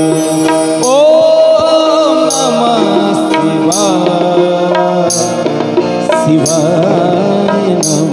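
Indian devotional bhajan music: harmonium chords held steady under a gliding, ornamented melody line, with tabla and other percussion keeping time.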